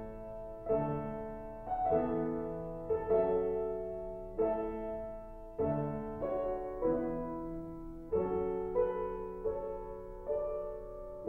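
Slow, quiet piano chords, struck about once a second and each left to ring and fade.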